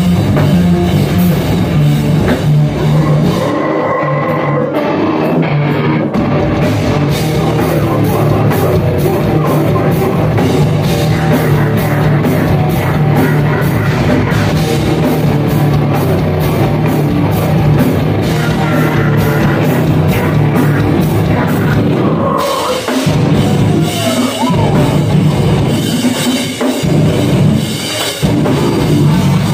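A live heavy metal band plays loudly with distorted guitars, bass and drum kit. The drums keep a fast, even run of hits through most of the stretch, and the pattern changes near the end.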